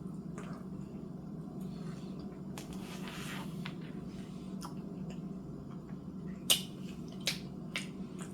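Quiet eating sounds: chewing with small clicks and wet smacks, one sharper click about six and a half seconds in, over a steady low hum in the room.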